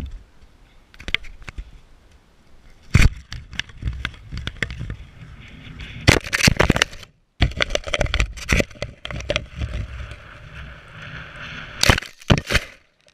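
Air Hogs RC plane with a GoPro on board crashing and tumbling through grass: a run of sharp knocks, cracks and scraping, the loudest about 3, 6 and 12 seconds in, over rough wind-like noise on the camera's microphone.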